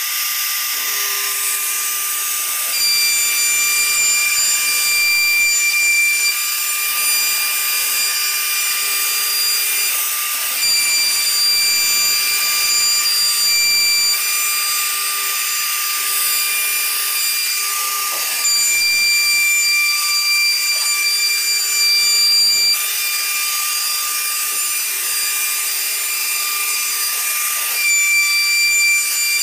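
1325 CNC wood router's spindle whining at speed as its bit cuts grooves into a wooden door panel, over the hiss of the bit chipping wood. The sound is steady but shifts abruptly several times.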